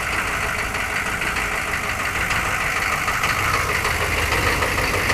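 Chevrolet Suburban's engine idling steadily.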